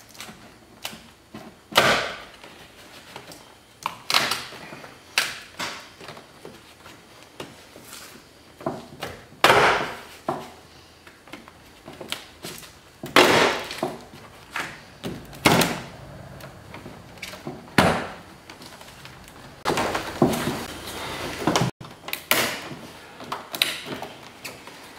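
Plastic interior door trim panel of a Buick LeSabre being worked loose and pulled off the car door, its clips coming free: a string of irregular knocks, clicks and short scrapes.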